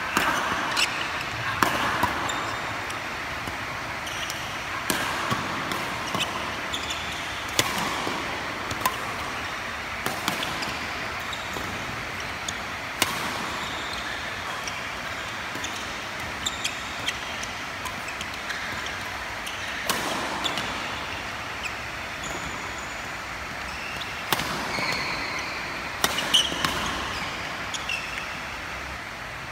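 Badminton racket strikes on a shuttlecock during a doubles rally, sharp hits at irregular intervals, sometimes several in quick succession. There are short high squeaks from court shoes, over a steady background hiss.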